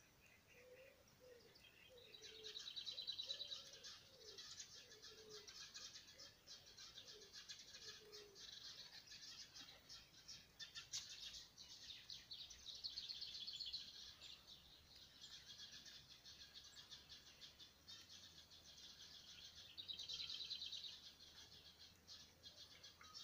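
Faint birdsong: rapid high trills, swelling three times, over a steady background of chirping. In the first eight seconds a lower voice gives a run of about nine short falling calls.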